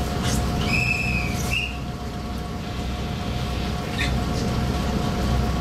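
KiHa 52 diesel railcar's engine idling steadily while the car stands at a station, heard from inside the cabin. About a second in, a short high whistle-like tone sounds twice in quick succession.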